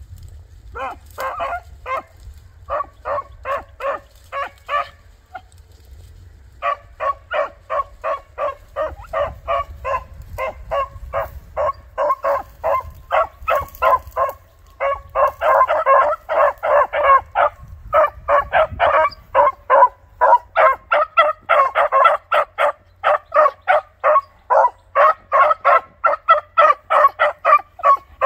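Beagle hound barking in quick, repeated chop barks, about two to three a second, as it gives tongue on a scent trail, the open-mouthed trailing bark of a hunting beagle. The barking pauses briefly about five seconds in, then resumes and grows louder from about the middle onward.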